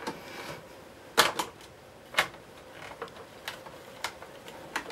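Hard plastic clicks and knocks as the Hoover Junior 1346A vacuum cleaner's base trim strip is handled and pressed onto its plastic body. There are two sharper knocks about a second and two seconds in, then a few lighter clicks.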